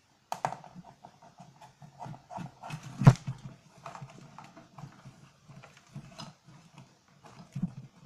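Handling noise: the white plastic housing of a homemade air conditioner being moved and turned on the table while wires are fed through a hole in it. Irregular clicks and knocks, with one sharp knock about three seconds in.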